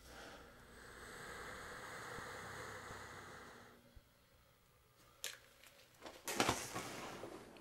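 A nebulizer mask hisses steadily for about four seconds, then stops abruptly. A sharp click follows, then a louder burst of rustling and knocks as the mask and its tubing are yanked off and flung away.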